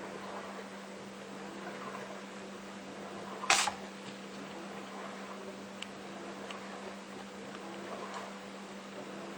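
A kitten sneezes once, a single short sharp burst about three and a half seconds in, over the steady hum of a washing machine running.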